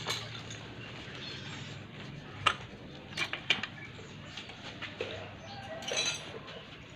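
A few sharp metallic clicks and clinks from tools and bolts while the carburettor is being unbolted from an old trail motorcycle engine, with birds calling in the background.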